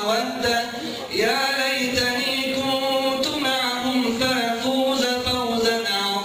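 A man's voice reciting the Quran in Arabic in the melodic, chanted style of tajwid, holding long wavering notes. There is a short break for breath about a second in.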